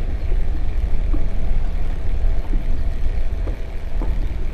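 Wind buffeting the microphone in a steady low rumble, with small splashes of wavelets against the boat now and then.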